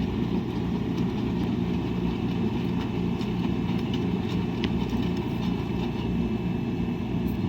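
Washing machine running: a steady low drone with a few faint ticks.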